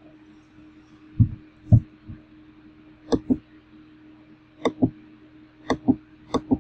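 Computer mouse clicking several times, most clicks a quick double snap of press and release, with a couple of duller low thumps a little over a second in, over a steady low electrical hum.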